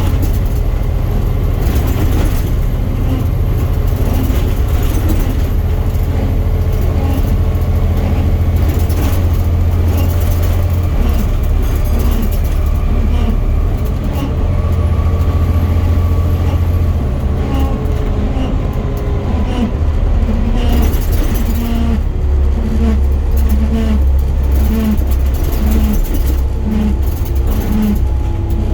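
Volvo B7 bus driving, its engine and drivetrain giving a steady low drone. A whine rises briefly partway through, and in the second half a pulsing noise repeats a little faster than once a second: the weird axle noise.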